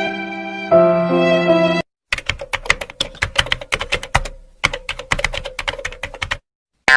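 A sad violin phrase breaks off about two seconds in. After a brief pause comes a burst of fast typing on a computer keyboard, many rapid key clicks, lasting about four seconds over a faint steady hum.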